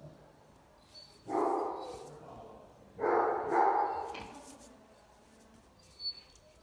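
A dog barking three times with echo: one bark about a second in, then two close together about three seconds in.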